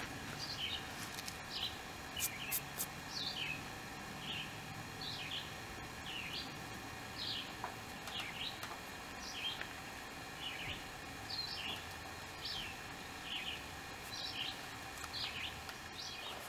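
A bird calling over and over with short, high chirps, about one or two a second and often in pairs. A couple of faint clicks come about two seconds in.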